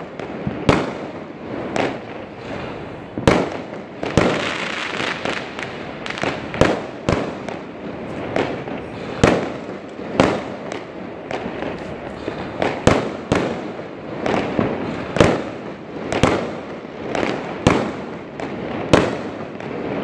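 Fireworks going off: sharp bangs at irregular intervals, about one a second, over a continuous crackle of many more fireworks.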